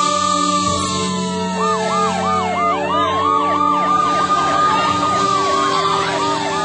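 Emergency vehicle sirens sounding together: a slow wail that rises and gradually falls, joined about a second and a half in by a fast yelp warbling several times a second.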